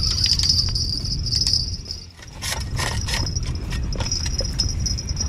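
Wind rumbling on the microphone under a steady high whine while a small shark is reeled in on a spinning rod. About two seconds in the sound drops briefly, then comes a short cluster of sharp clicks and splashes at the water's edge.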